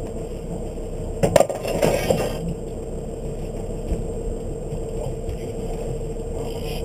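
Boat engine running steadily, with a short burst of clinks and knocks about a second and a half in.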